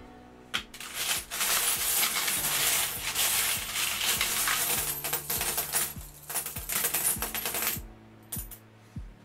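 Handfuls of loose metal coins rattling and clinking as a hand rummages through a tub of mixed world coins. A dense jangle lasts about seven seconds, then a few separate clinks come near the end.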